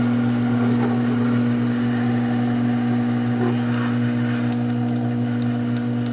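Taig lathe running steadily, its motor and belt drive giving a constant hum and whine while the tangential tool takes a dry cut in aluminum that is starting to weld to the tool edge. A few faint ticks come in the second half.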